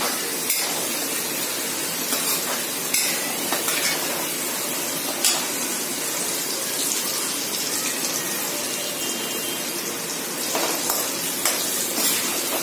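Oil sizzling steadily in a metal kadhai as green chillies and spices fry, with a few clinks and scrapes of a perforated metal slotted spoon stirring against the pan.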